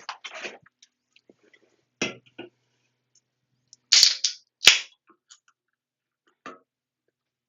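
Close-miked mouth and throat sounds of someone stifling burps. A breathy exhale comes at the start and a short low gulp about two seconds in. Two sharp, loud pops follow in quick succession about four seconds in.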